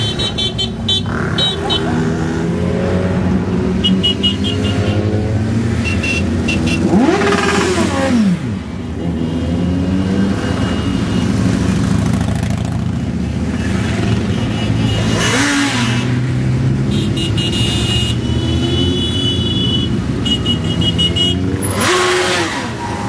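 A long stream of motorcycles riding past at low speed, their engines running together in a steady mix. Single bikes pass close about seven, fifteen and twenty-two seconds in, each with a pitch that rises and then drops as it goes by.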